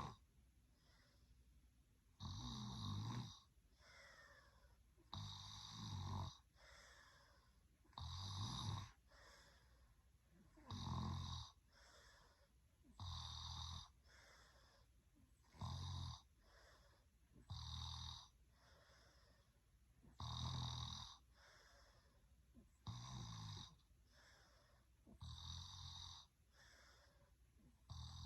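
A sleeping person snoring at an even pace: about ten snores, each roughly a second long, every two to three seconds, with quiet between them.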